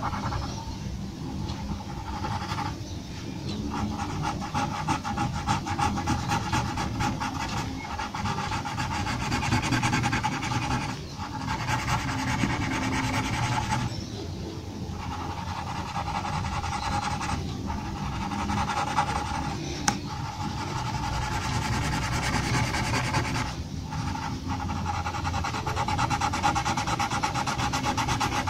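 Pencil scratching on paper in quick repeated hatching strokes, with a few short pauses.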